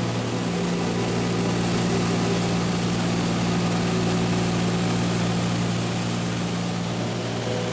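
Steady drone of a small aircraft's engine and propeller during a sightseeing flight, holding an even pitch throughout.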